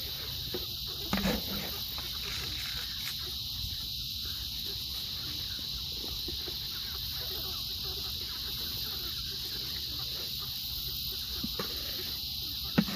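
A steady, high chorus of insects, with meat chickens in the flock making a few short sounds about a second in and again near the end.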